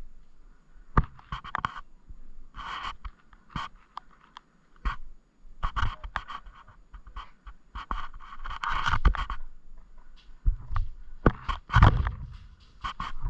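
A person panting hard in repeated noisy breaths, mixed with rustling, scraping and sharp clicks and knocks, the loudest cluster of knocks near the end.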